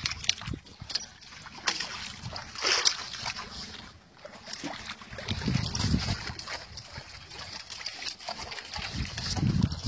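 Water splashing and sloshing around a small fishing boat at sea, in irregular bursts.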